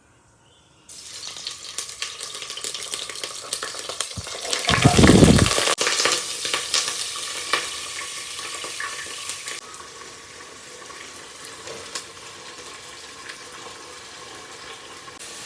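Food sizzling in a frying pan with small clicks and scrapes of stirring; the sizzle starts suddenly about a second in, with a loud rush about five seconds in, and settles to a quieter sizzle in the second half.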